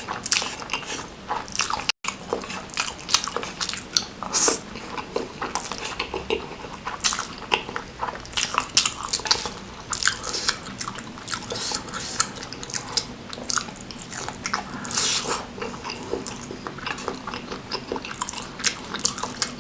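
Close-up mouth sounds of a person chewing and eating a spicy noodle meal: many short clicks and smacks in quick, irregular succession.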